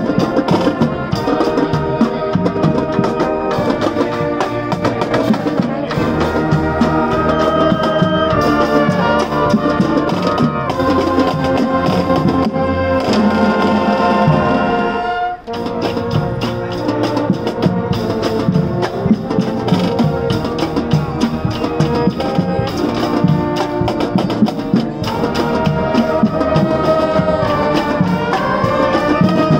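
High school marching band playing a tune on brass with drums, continuously, breaking off for an instant about halfway through before carrying on.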